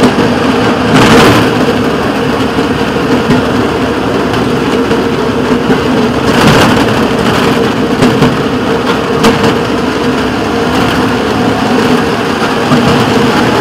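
Engine of a rail motorcar running steadily as it travels along the track, a continuous hum with rough running noise. There are two brief rushes of louder noise, about a second in and around six and a half seconds in.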